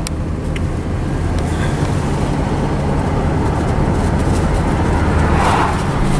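Car engine and road noise heard from inside the cabin while driving: a steady low hum with a constant drone beneath it.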